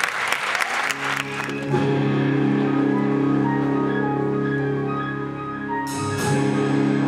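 Audience applause dying away, then a theatre pit band starting a song's introduction: held low chords under a pulsing repeated figure, with two bright percussion strikes about six seconds in.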